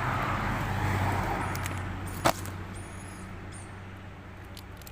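A road vehicle's engine and tyre noise fading away, with one sharp click a little over two seconds in.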